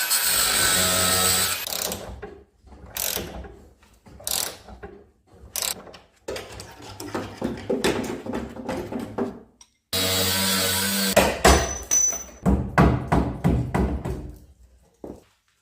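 Hand tools and a power tool working on car suspension fasteners. A power tool runs steadily for about two seconds at the start and again briefly about ten seconds in. Between and after these runs come bursts of quick ratchet-wrench clicking and metal knocks.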